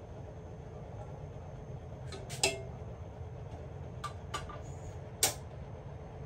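A metal utensil clinking against a steel cooking pot and the kitchen counter: a few light taps, with two louder, sharp clinks about two and a half and five seconds in, over a steady low hum.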